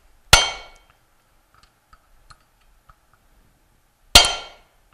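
Two hard metal-on-metal strikes, near the start and near the end, on a tool held to the end of a Bell & Gossett Series 60 pump shaft. Each is a sharp clang that rings off in about half a second. The blows are knocking the stuck impeller off the bearing assembly shaft.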